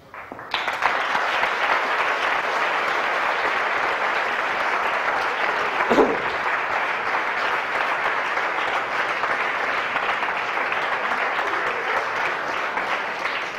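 Audience applauding steadily, starting about half a second in and thinning out near the end.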